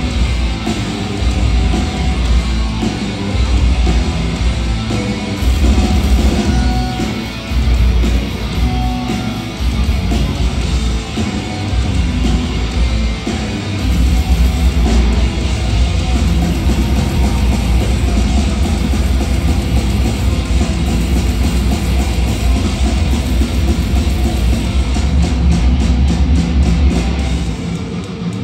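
Thrash metal band playing live: distorted electric guitars and a drum kit with a heavy kick drum, heard through a concert PA from within the crowd.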